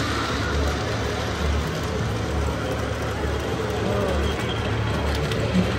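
A vehicle running with a steady low rumble that pulses about once a second, with people's voices in the background.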